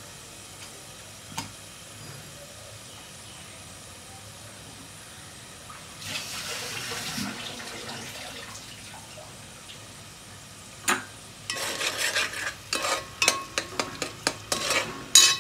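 Green chilli, garlic and cumin paste sizzling faintly in hot oil in an aluminium pot, the hiss swelling for a couple of seconds about six seconds in. From about eleven seconds a spoon stirs the masala, scraping and clinking against the pot, with the loudest clank near the end.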